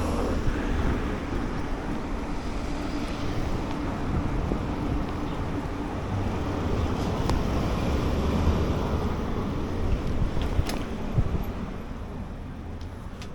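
Motor scooter riding along a road: a steady wind and road rumble over the microphone with the scooter's engine running underneath, easing off somewhat near the end.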